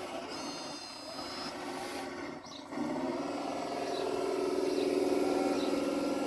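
Motors of a radio-controlled construction model running with a steady whine, which picks up with a short rise about three seconds in and then runs louder.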